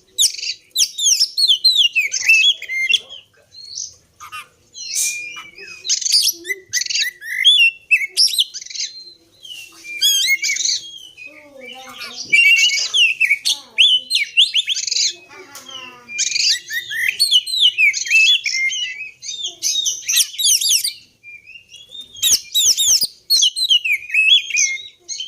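Oriental magpie-robin (kacer) singing a fast, varied song of sweet whistles, chirps and trills, phrase after phrase with short pauses. The song breaks off for about a second and a half near the end, where a few faint clicks are heard, then resumes.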